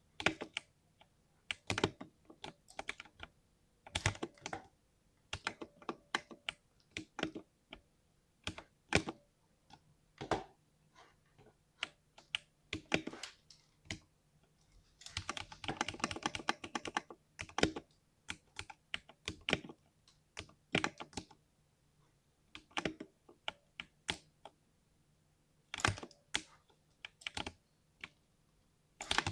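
Typing on a 60% mechanical keyboard with a deep, smooth 'thock': groups of keystrokes broken by short pauses, with a fast run of typing about halfway through.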